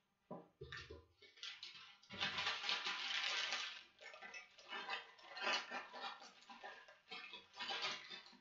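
Plastic instant-ramen packaging crinkling in the hands, with a denser tearing rustle from about two to four seconds in as a small seasoning sachet is ripped open. A dull low thump about half a second in.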